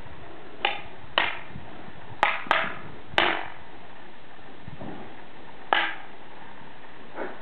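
A series of sharp knocks at irregular intervals, six clear ones in the first six seconds, two of them close together about two and a quarter seconds in, each with a brief ring, and a fainter one near the end.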